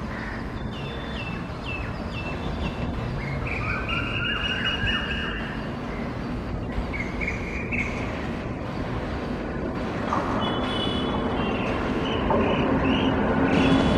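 Indian Railways WAP7 electric locomotive and its express coaches approaching, a steady rumble that grows louder as the train nears. Birds chirp over it in the first half.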